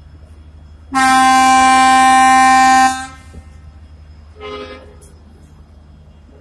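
Train locomotive horn: one long, loud blast of about two seconds, then a short, quieter toot about a second and a half later, over a steady low rumble.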